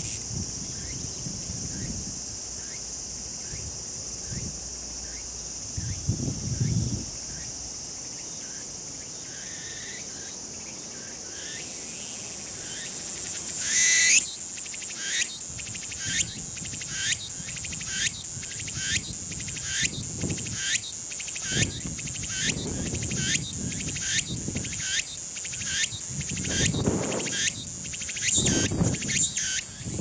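Meimuna opalifera (tsukutsuku-boshi) cicada singing. A steady high buzz builds, and about halfway through it breaks into a loud song of evenly repeated phrases, about one a second, quickening slightly near the end.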